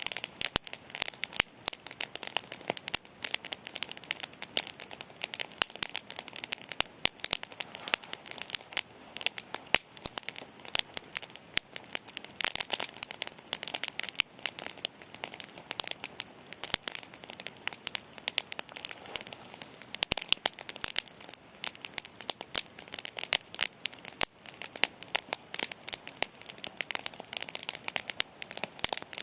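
Cedar-wood campfire crackling: a dense, irregular stream of sharp pops and snaps, many each second.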